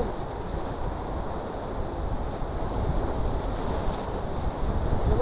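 Surf breaking and washing over a rocky shoreline, with wind on the microphone: a steady rushing noise with a low rumble and a constant high hiss.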